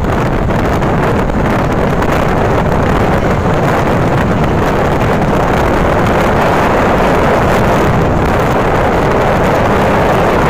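Steady wind noise buffeting the microphone of a moving Yamaha Mio Sporty automatic scooter, with the scooter's running and road noise beneath it.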